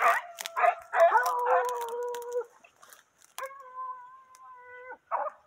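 American foxhounds baying on a scent trail. A few short cries come first, then two long, held bays of about a second and a half each, and a short cry near the end.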